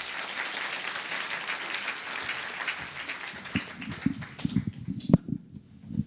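Audience applauding, the clapping dying away about five seconds in. From about three and a half seconds in, footsteps thud across the stage.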